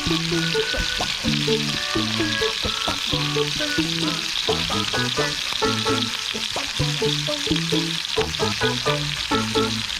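Food sizzling steadily on a grill over a fire pit, with a constant high hiss. Background music with a melody plays along with it.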